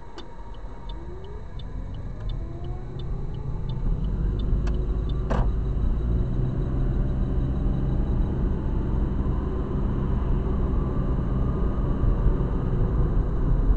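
Car turn signal ticking evenly inside the cabin, stopping about four seconds in, while the car's engine rises in pitch as it accelerates away through a right turn. Then a steady, louder low rumble of engine and tyres as the car drives on, with a single sharp click about five seconds in.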